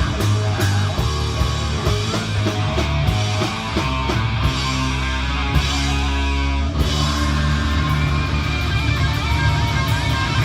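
Rock music: guitar playing over bass and regular drum hits, with a change in the playing about two-thirds of the way through.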